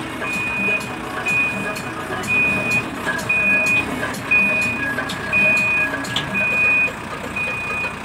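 Reversing alarm on a Manitou MBL 745 backhoe loader, giving a steady high beep about half a second long roughly once a second, over the low running of its diesel engine.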